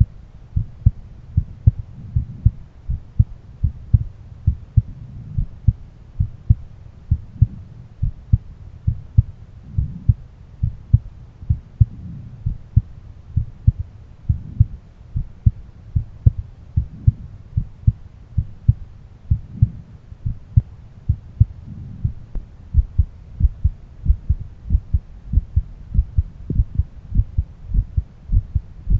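A man's heartbeat heard through a stethoscope: a steady, regular rhythm of paired low thumps, the lub-dub of the heart sounds.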